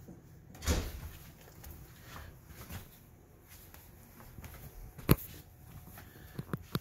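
Old English Sheepdog puppies shuffling and scuffing about on a chenille mat and bedding, with a louder rustle about a second in and a sharp knock about five seconds in.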